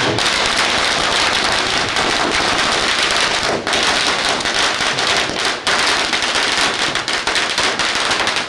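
Firecrackers going off on the ground in a rapid, continuous crackle of sharp pops, with a couple of brief lulls.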